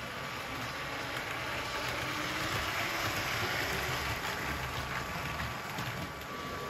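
Motorised Lego train running along plastic track, a steady mechanical hum that grows louder a few seconds in as it passes close, then eases off near the end.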